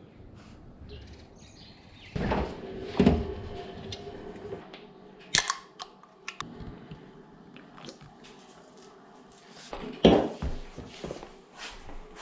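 Indoor handling sounds: a string of clicks, knocks and thumps as hands open a drink can and pick things up. The loudest thumps come about two to three seconds in and about ten seconds in.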